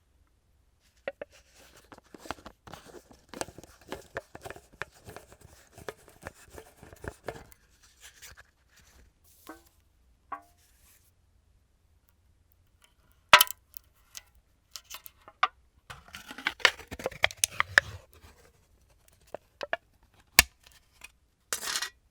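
The lid of a new peanut butter jar is twisted off and its seal cover torn away. First come many small crackling clicks over several seconds. Later there are a few sharp snaps and a stretch of tearing and crinkling.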